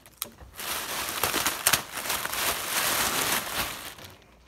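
Clear plastic bag crinkling and rustling as it is handled and pulled open, fading out near the end.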